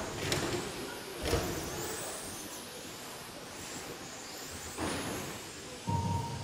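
Electric radio-controlled cars racing on an indoor carpet track: thin, high-pitched motor whines rising and falling as the cars accelerate, brake and pass, with a few louder short swells.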